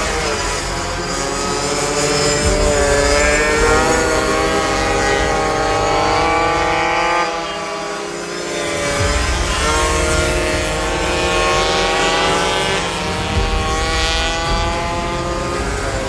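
Several small pocket bike engines running at high revs, their pitch rising and falling as the riders brake and accelerate through the corners, with a brief dip in the sound about eight seconds in.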